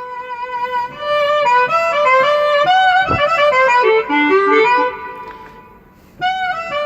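Banda-style clarinet sample patch played on a keyboard synthesizer: a quick melodic run of single notes that dies away about five seconds in, then a new phrase starts near the end.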